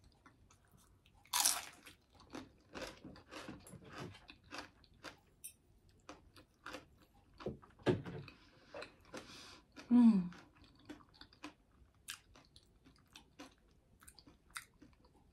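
A person chewing and biting food close to the microphone: a run of small wet mouth clicks and crackles, with one louder noise about a second and a half in and a short low hum near the ten-second mark.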